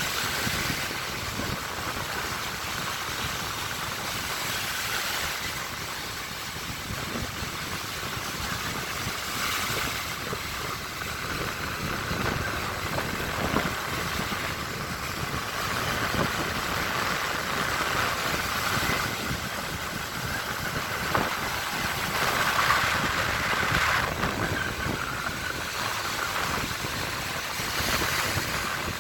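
Baltic Sea waves washing onto the shore: a continuous rush of surf that swells briefly every few seconds as waves break.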